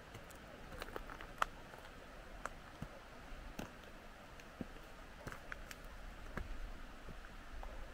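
Quiet outdoor ambience with faint, irregular clicks and ticks scattered through it, one sharper click about a second and a half in.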